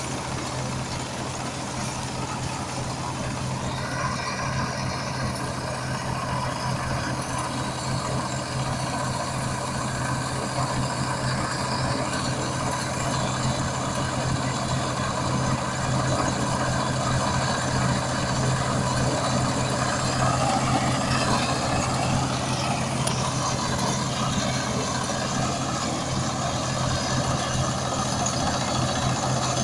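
Combine harvester's engine running steadily, with a higher mechanical whine joining about four seconds in and the sound growing slowly louder.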